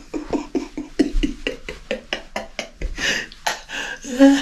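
A man laughing hard, in quick breathy bursts about five a second, with a louder voiced laugh near the end.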